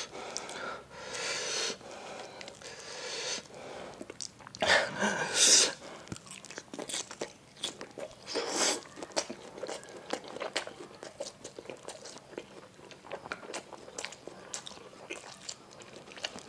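Close-up eating sounds of a person biting and chewing bakso meatballs in spicy sauce: wet chewing with many small mouth clicks, and louder bites or slurps about five seconds in and again near the middle.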